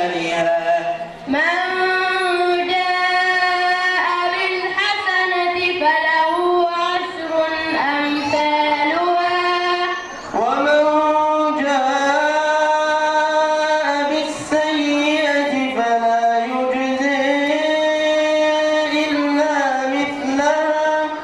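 A boy's voice reciting the Quran through a microphone in melodic tajweed style, drawing out long, ornamented held notes phrase by phrase. It breaks briefly for breath about a second in and again about ten seconds in.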